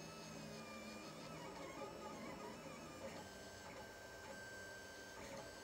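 Lulzbot TAZ 5 3D printer's stepper motors whining as the print head moves, the pitch gliding up and down with the moves. About three seconds in, a steady high tone joins.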